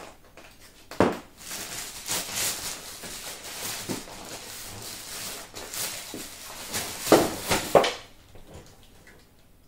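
Rustling and handling of packaging, with a sharp knock about a second in and a few louder knocks near the end.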